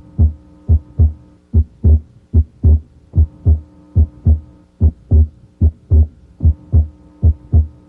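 Heart sounds heard through a stethoscope diaphragm at the left second interspace: paired first and second sounds at about 75 beats a minute. The second sound is split abnormally wide, the split coming and going with respiration. A faint steady hum lies beneath.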